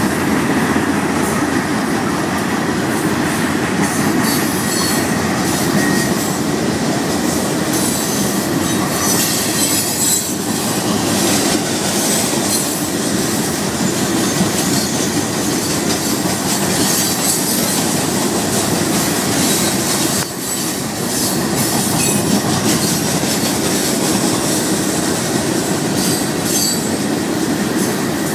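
Loaded rock cars of a Florida East Coast Railway freight train rolling steadily past, the wheels clattering over the rail joints with scattered high wheel squeals.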